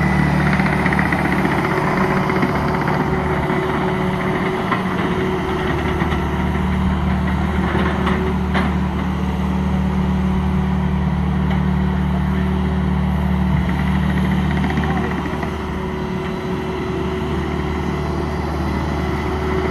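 Ditch Witch SK3000 compact track loader's engine running steadily as the machine moves on its tracks and lifts a heavy log. The engine note shifts and drops slightly about three-quarters of the way through.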